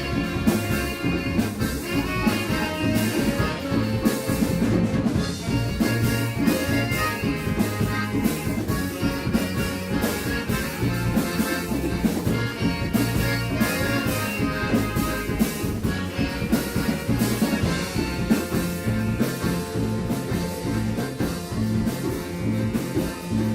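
Live band playing a song, with a drum kit keeping a steady beat under pitched instruments.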